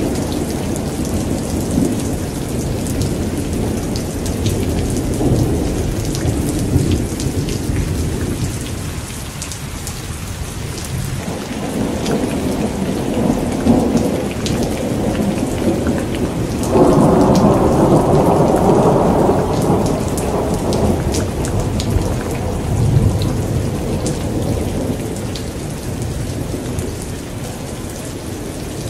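Thunderstorm: steady rain hissing with scattered drop ticks over a continuous low rumble of thunder. About seventeen seconds in, the thunder swells suddenly louder and rumbles on for a few seconds before fading back.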